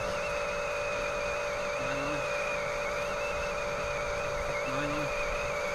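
Small electric motors of a Huina RC toy construction vehicle whining steadily, a higher whine wavering slightly in pitch over a constant lower tone.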